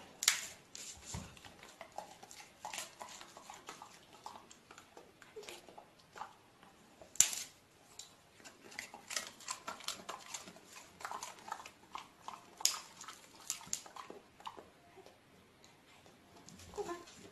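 Dogs taking treats from a hand and chewing them: an irregular run of short mouth clicks, snaps and smacks, a few of them sharper and louder.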